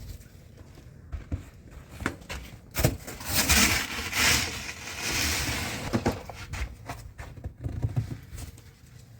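Snow shovelling: a long scraping swish of a shovel working through snow a few seconds in, with small knocks and low bumps around it.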